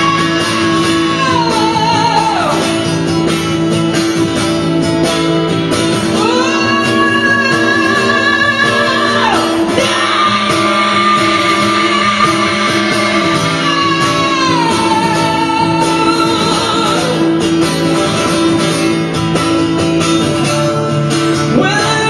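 A live rock song performed by a male singer with his own guitar. He holds long, high notes lasting several seconds each, sliding into and out of each note, over steady guitar chords.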